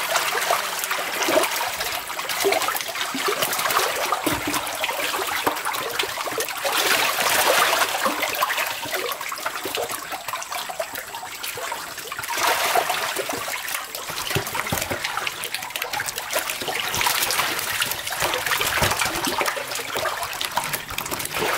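Shallow water splashing and churning as a crowd of catfish thrash in a nearly drained tank while hands and a plastic basket scoop through them, with stronger surges of splashing now and then.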